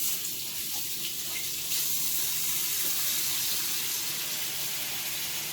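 Kitchen tap running into a sink for hand washing, a steady rush of water that gets a little louder about two seconds in.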